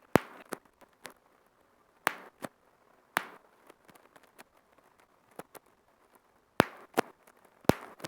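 Bubble wrap being popped bubble by bubble: about eight loud, sharp pops at irregular intervals, several coming in quick pairs, with fainter crackles of the plastic in between.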